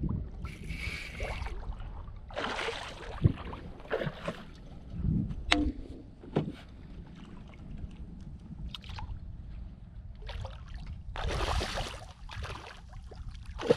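Hooked redfish thrashing at the surface beside an inflatable skiff: several bursts of splashing, the longest about eleven seconds in. A few sharp knocks come in between.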